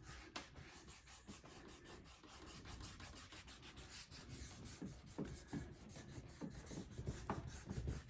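Faint, irregular rubbing and scuffing on a saddle tree where candle wax has been applied, made of many short strokes with a few light taps.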